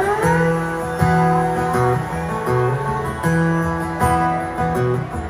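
Live country band playing the instrumental intro of a song: strummed acoustic guitar over bass, drums and keyboards, with no singing yet.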